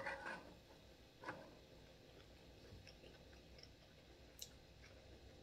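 Faint chewing and soft mouth sounds of someone eating, with a few small clicks from handling food. There are short louder sounds at the start and about a second in.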